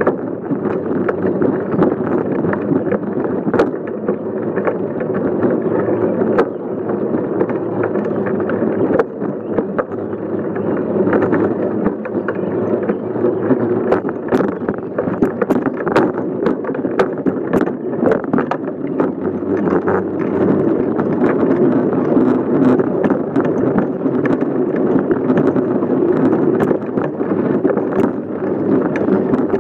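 Bicycle riding along a sidewalk, heard from a camera on its frame: a steady rumble of tyres and air, with frequent small rattles and knocks as the bike goes over bumps and joints.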